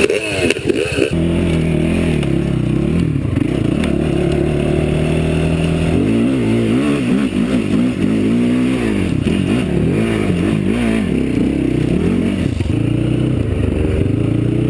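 Quad (sport ATV) engine running at a steady pitch, then revved up and down several times as it gets under way, before settling again. A different engine revs briefly in the first second.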